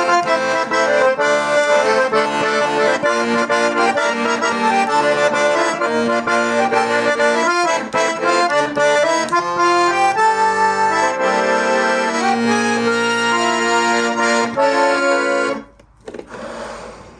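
Hohner Morino 4M accordion being played, melody over sustained chords, which stops near the end and leaves a brief faint hiss.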